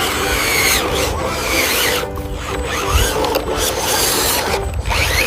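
Continuous rasping, scraping noise mixed with background music, with brief squealing glides.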